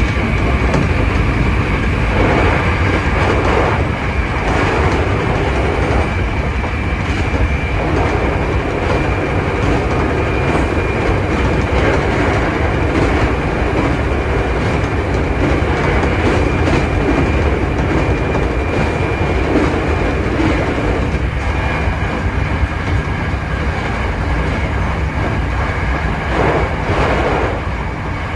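Hankyu 7300 series electric train running at speed: a steady rumble with repeated clicks over rail joints and a steady high tone that steps down to a lower pitch about two-thirds of the way through.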